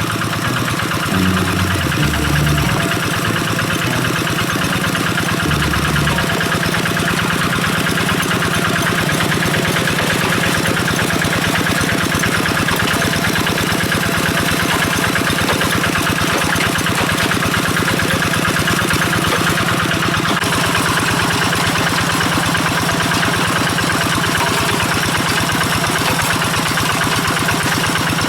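Kubota RD85 DI-2S single-cylinder diesel engine on a two-wheel hand tractor, running steadily with a fast, even beat of firing pulses.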